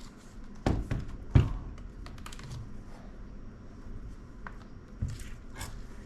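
Handling noise on a work surface: two sharp knocks under a second apart near the start, then scattered light clicks and taps.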